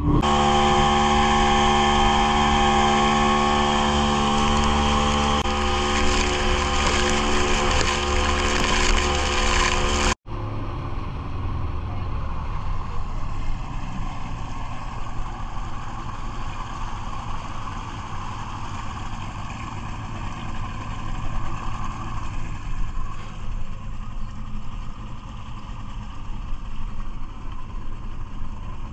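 Outboard motor on a small boat running at high speed, with water rushing past the hull. After an abrupt cut about a third of the way in, the motor runs slower and quieter.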